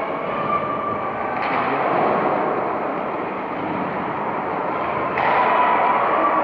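Indoor ice hockey rink ambience: a steady noisy roar of the arena with faint distant voices mixed in, getting louder about a second and a half in and again near the end.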